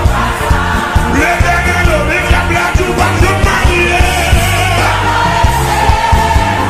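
Haitian Creole gospel song: a sung vocal line over a band with a steady bass and drum beat.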